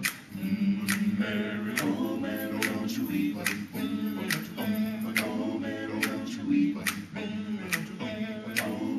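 A cappella gospel vocal group singing in close harmony, with a sharp snap marking the beat a little more than once a second.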